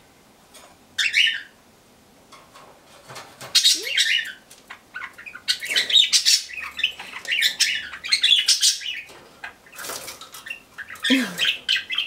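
A cockatiel bathing in a covered plastic bird bath, splashing and fluttering its wings in the water in irregular bursts, about a second in, near four seconds, and most busily between six and nine seconds, with a few short bird calls among them.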